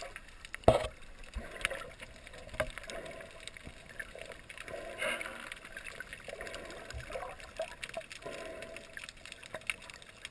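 Muffled underwater water noise picked up by a snorkeler's camera: irregular swishes and gurgles as it moves through the water, with one sharp knock a little under a second in.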